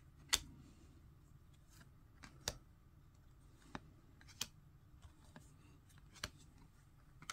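Trading cards being flipped through one at a time by hand: about six sharp card clicks as each card is snapped to the front of the stack, one every second or two, the first the loudest.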